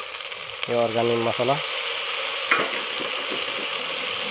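Curry of potato, taro and dried meat sizzling steadily in a metal pot on a wood-fired clay stove, with a single knock about halfway through.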